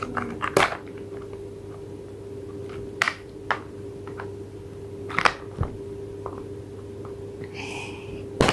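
Scattered clicks and knocks of a small plastic toy being handled and fiddled with, a few sharp taps a second or two apart, over a steady hum.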